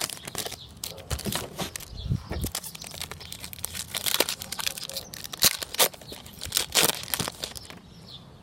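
Plastic wrapper of a baseball card pack being torn open and crinkled, a run of irregular crackles and rips.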